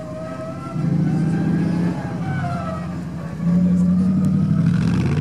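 Suzuki Vitara off-road trial vehicle's engine running and revving hard in two bursts of throttle, about a second in and again past the middle, dropping back between them.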